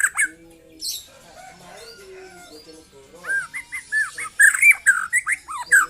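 Young white-rumped shama singing: a short burst of whistled notes at the start, then from about three seconds in a fast run of short, down-slurred whistles.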